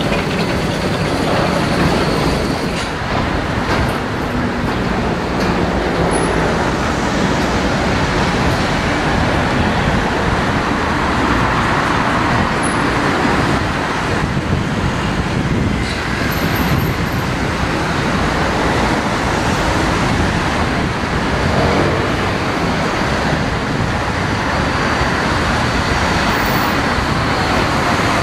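Steady city street noise of electric trams and road traffic running.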